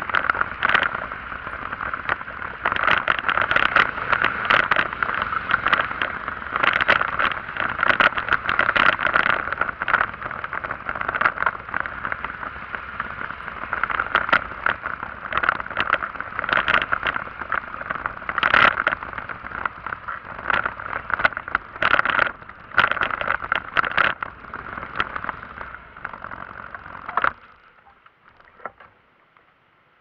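A vehicle in motion, running steadily with frequent rattles and knocks as it goes over a rough road. The running noise cuts off abruptly about three seconds before the end, leaving only a few faint ticks.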